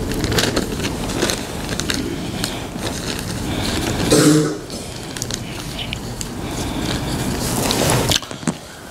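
Congregation murmuring and shifting about in a small prayer room during the short sitting between the two parts of the Friday sermon, with a brief vocal sound about four seconds in; the noise falls away just before the end.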